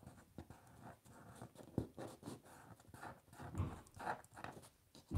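Fingers pressing and rubbing small paper collage pieces down onto a card on the table. It is a run of irregular scuffs and soft knocks, with a few louder knocks around the middle and near the end.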